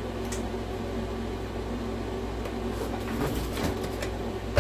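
Steady low electrical hum with a few faint clicks and taps, one just after the start and a few more about three and a half seconds in, from parts of a disassembled PlayStation 4 being handled.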